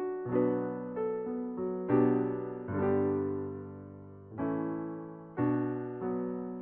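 Background piano music: slow chords struck one after another and left to fade.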